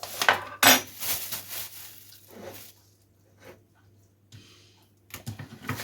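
Plastic bag crinkling and rustling while pollock pieces are coated in flour inside it, with sharp loud crackles in the first second, softer rustling after, then a few light clicks near the end.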